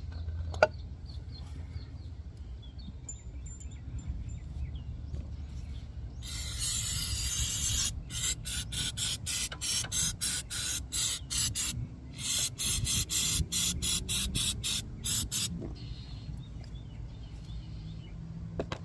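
An aerosol spray can hissing: one spray of nearly two seconds, then a quick run of short bursts, about two or three a second. A sharp click comes about half a second in.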